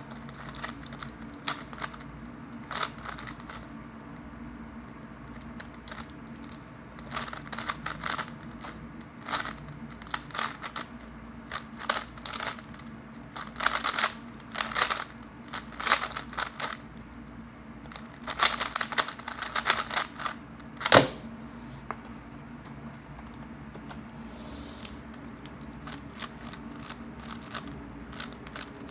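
3x3 Rubik's cube being turned fast in a speedsolve: bursts of rapid plastic clicking and clacking, with short pauses between bursts. One sharp knock about two-thirds of the way through is the loudest sound.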